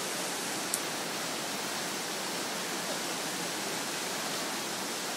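Small mountain stream cascading over rocks: a steady rush of water, with a single short click under a second in.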